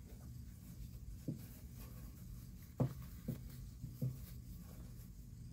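Terry cloth towel being handled and turned right side out, a faint fabric rustle with four short soft taps, the second and fourth loudest.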